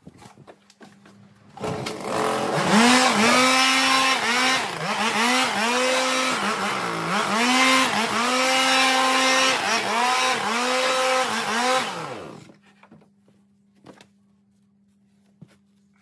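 Handheld leaf blower switched on about a second and a half in and run in repeated bursts, its pitch rising and falling as the trigger is squeezed and eased, with a rush of air; it cuts off about twelve and a half seconds in.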